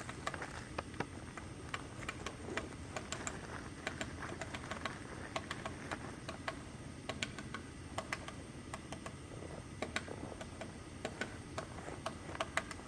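Woodpecker pecking at wood while foraging: irregular sharp taps, several a second, with uneven gaps.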